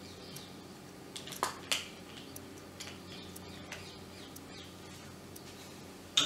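Small plastic clicks and scrapes as a hand blender's switch and its wires are worked out of the plastic handle housing, with two sharper clicks about a second and a half in and another at the very end, over a faint steady hum.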